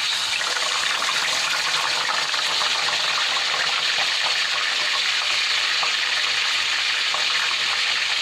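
Marinated pork belly strips sizzling in hot oil in a wok: a steady frying hiss with small crackles.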